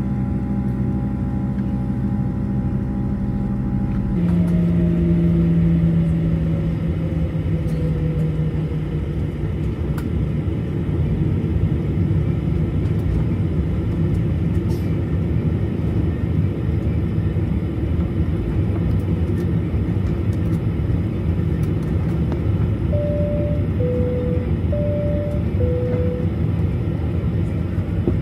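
Steady low vehicle engine rumble. A steady hum cuts off about four seconds in, a tone then slides downward over the next few seconds, and four short alternating high-low tones sound near the end.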